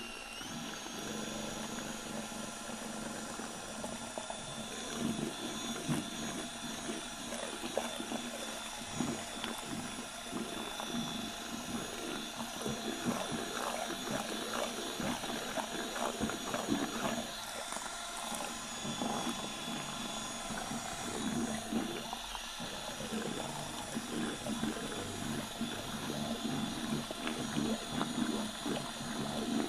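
Cordless drill running steadily with a paddle mixer, churning and sloshing liquid epoxy resin as metallic pigment is mixed into it in a plastic bucket.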